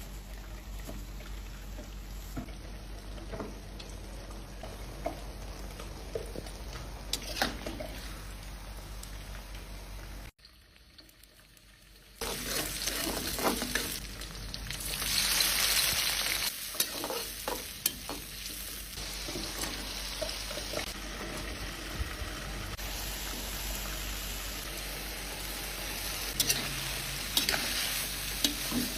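Shrimp and broccoli stir-frying in a pan: steady sizzling, with the clicks and scrapes of a spatula stirring. About ten seconds in, the sound drops almost to nothing for a couple of seconds. When it returns, the sizzle swells louder for a moment around fifteen seconds.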